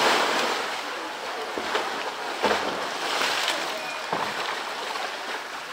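Pool water splashing and sloshing as a polar bear wrestles a floating blue plastic drum, the loud splash of its plunge dying away in the first second. A few sharp knocks follow a second or two apart as the bear handles the drum.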